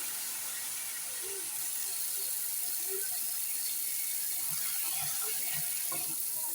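Kitchen tap running steadily, filling a container with water for the rice.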